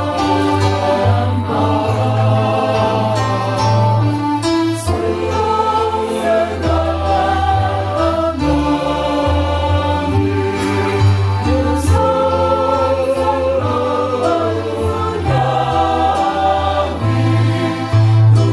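Choir singing to electronic keyboard accompaniment, with sustained voices over a steady keyboard bass.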